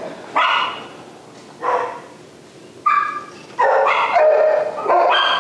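Dog barking in a shelter kennel block: a few short, separate barks about a second apart, then a busier run of barking over the last couple of seconds.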